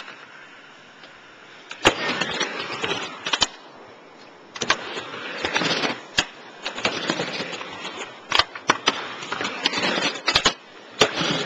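Skateboard wheels rolling back and forth on a wooden mini halfpipe in runs of a second or two, with sharp clacks of the board striking the ramp and coping.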